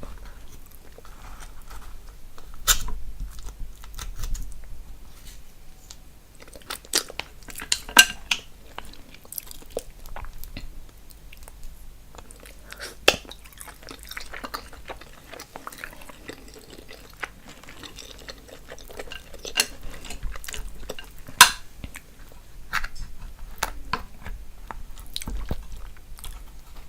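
Close-miked eating sounds from a seafood boil in sauce: wet chewing and smacking, with sharp clicks now and then, the loudest about 8 and 21 seconds in.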